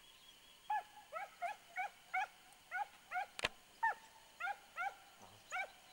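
A hound baying on a hare chase: a quick series of short, yelping calls, about two to three a second, starting just under a second in. A single sharp click comes about midway.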